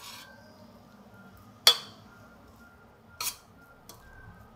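A metal spoon clinking against a steel pressure cooker while cooked rice and cauliflower are stirred. There is one sharp clink about a second and a half in, a softer one about three seconds in, and quiet stirring between them.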